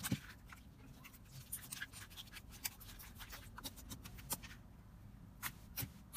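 Hands squishing and poking a clear glitter slime full of air bubbles: soft, irregular pops and clicks as the slime is pressed and pulled. The clicks thin out about two thirds of the way through, leaving a few scattered pops.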